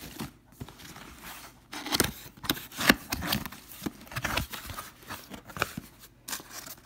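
Cardboard box being handled and its flaps pulled open: irregular scraping, rustling and sharp cardboard knocks, the loudest about two and three seconds in.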